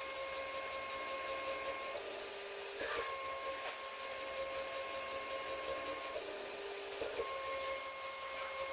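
Stepper-motor-driven automated pillar drill drilling a graphite block: the stepper motors give a steady electronic whine, which twice switches to a higher whine for just under a second and ends in a short click as the machine cycles from one hole to the next.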